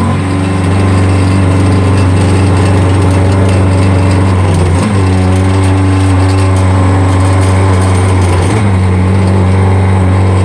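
CNC milling machine spindle driving a worn high-speed-steel end mill through metal, with loud chatter and vibration from the thin workpiece sticking up from the vise and the dull cutter. A strong steady hum whose pitch dips briefly twice, about five seconds in and again near the end.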